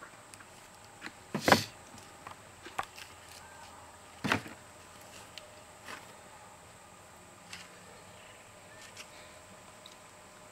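Handling noises while a wound is stitched: a few scattered sharp clicks and knocks, the two loudest about a second and a half and about four seconds in, over a low steady hiss.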